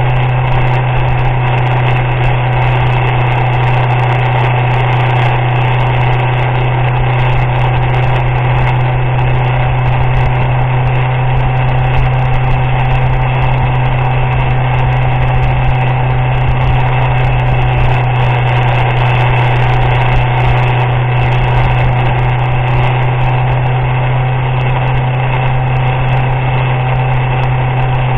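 Motorcycle engine running steadily while riding on a wet road, a constant low drone with no change in pitch, over steady wind and road noise.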